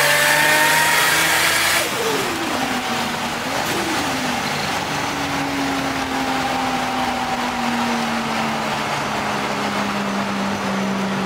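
Turbocharged car's engine heard from inside the cabin, pulling hard at first. About two seconds in the throttle is closed: the sound drops suddenly and the revs fall away. It then settles into a steady drone whose pitch sinks slowly as the car eases off.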